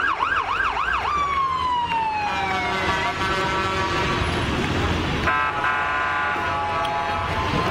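Fire truck sirens: a fast warbling yelp for about the first second, then a falling tone, then long steady tones for the rest.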